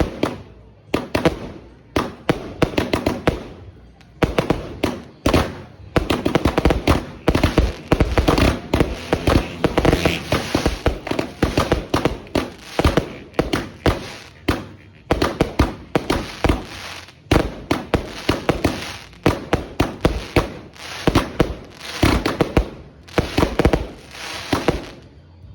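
A 100-shot multi-effect fireworks display cake firing, with shot after shot going off in rapid succession as sharp bangs and crackling. The shots stop right at the end.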